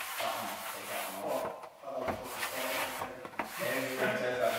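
A sponge scrubbing a plastic cutlery drawer insert, with repeated back-and-forth rubbing strokes at an uneven pace.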